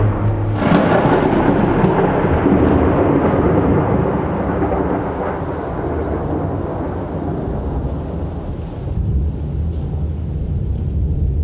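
Thunderclap: a sharp crack less than a second in, then a long rolling rumble that slowly fades, with a second, lower rumble swelling near the end.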